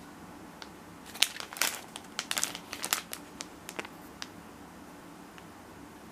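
Clear plastic packaging crinkling in the hands as the bag is turned over, a run of sharp crackles lasting about three seconds from about a second in, then dying away.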